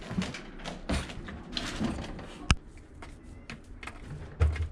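Wire cage rattling and clattering irregularly as kittens climb and scramble on its bars, with a sharp click about halfway through and a dull thump near the end.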